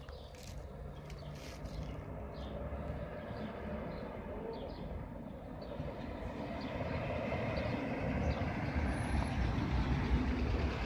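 Motor vehicle engine rumble growing steadily louder as it approaches.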